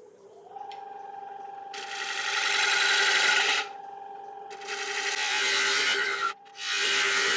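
Wood lathe motor running with a steady whine while a turning gouge cuts into a dry, spinning yew bowl in three long scraping passes.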